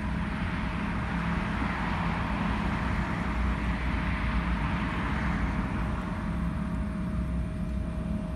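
Outdoor road traffic noise: a vehicle passing, its tyre and engine hiss swelling through the first half and fading away, over a steady low hum.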